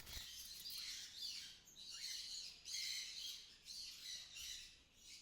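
African lovebirds chirping in quick, high-pitched bursts with short pauses between them.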